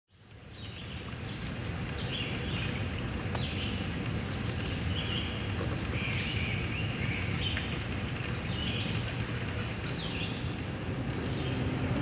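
Woodland ambience fading in: a stream running over rocks under a steady, high insect drone, with a songbird repeating short call phrases about once a second.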